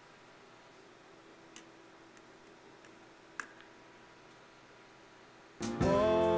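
A few faint clicks from a laptop being worked by hand, then near the end the soundtrack of a clip played from the laptop starts loudly: a pitched, chord-like sound that slides up in pitch at its start and lasts about a second.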